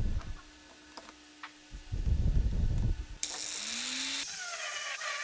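A sharp knock, then handling and rustling as a sanding disc is fitted onto an angle grinder's spindle. From about three seconds in, a steady hiss starts, with a short rising tone and then warbling chirp-like tones.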